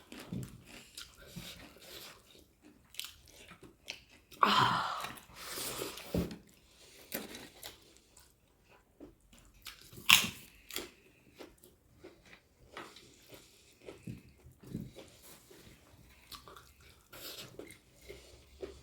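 A person chewing and biting food close to the microphone, with wet mouth sounds and small clicks. The chewing gets louder for a stretch about four and a half seconds in.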